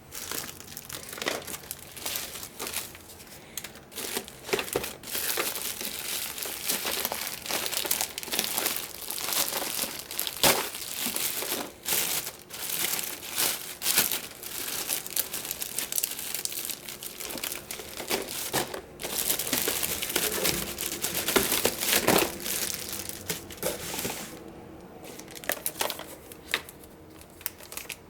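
Pokémon trading card booster packs and their wrapping being crinkled and torn open by hand: a dense, continuous crackle with sharp ticks that thins to scattered ticks near the end.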